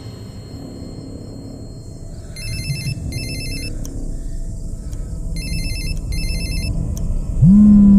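Mobile phone ringtone, an electronic trilling ring sounding in two pairs of short bursts, over a low rumbling background. Near the end a loud, steady low hum starts abruptly.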